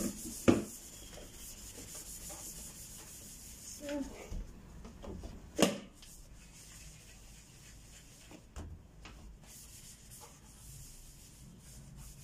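Soapy sponge scrubbing a stainless steel kettle by hand, a steady rubbing scratch, with a couple of sharp knocks, about half a second and five and a half seconds in.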